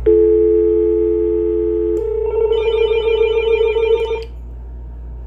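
Telephone line dial tone for about two seconds, a steady two-note hum, followed by about two seconds of a fast-warbling electronic phone ring that stops abruptly.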